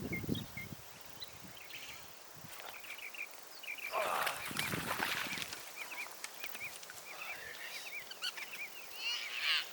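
Birds chirping outdoors: many short, repeated high calls, with a louder flurry of calls near the end.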